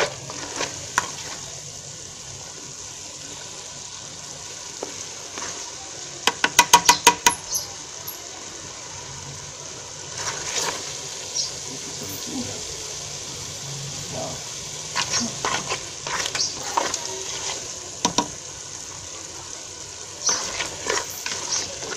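A pot of sweet potato leaves (matembele) and fish sizzling steadily as it cooks, with a spoon clinking and scraping against the metal pot now and then as it is stirred; a quick run of about eight taps comes around six to seven seconds in.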